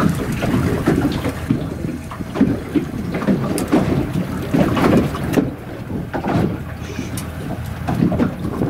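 Wind buffeting the microphone and water lapping against the boat's hull, an uneven rumble with a few short sharp clicks scattered through it.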